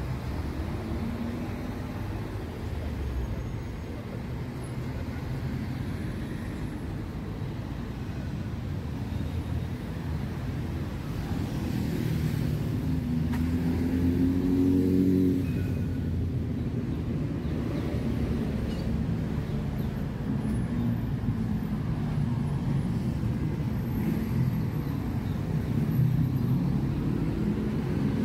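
Road traffic in a city street: car engines running and passing in a steady low rumble, with a vehicle growing louder and its engine note rising around the middle, and another engine rising near the end.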